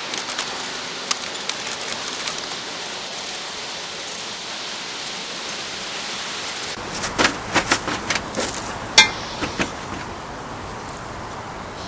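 Metal tools and engine parts clinking and clicking as they are handled and set down, over a steady hiss. A quick run of clinks comes in the second half, with one sharp click the loudest.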